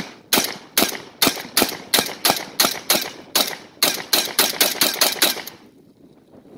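Garaysar Fear-116 semi-automatic 12-gauge shotgun fired rapidly from its drum magazine: about seventeen shots at roughly three a second, coming faster toward the end, then stopping about five and a half seconds in as the magazine runs empty.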